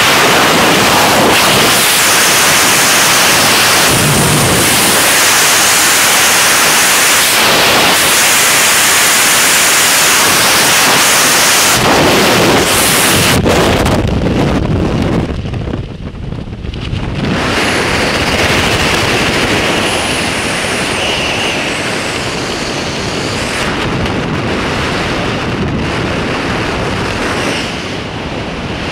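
Freefall wind rushing hard over a skydiver's camera microphone. About halfway through there is a brief snap as the parachute deploys, and the rush drops away into lighter wind noise under the open canopy, with faint whistling.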